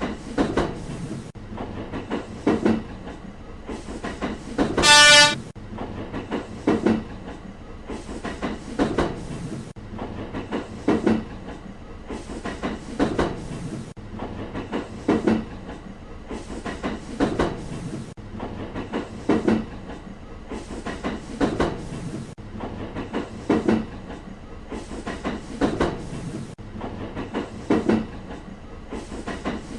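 A train running along the track, its wheels clacking over the rail joints in pairs about every two seconds, with one short horn blast about five seconds in.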